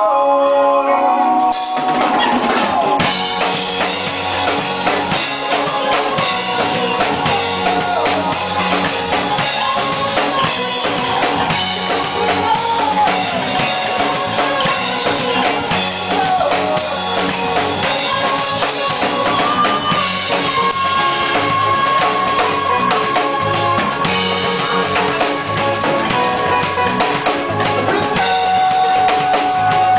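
Live rock band playing: a full drum kit with kick and snare keeps a steady beat under a held lead line that bends in pitch. The drums and low end come in about two seconds in.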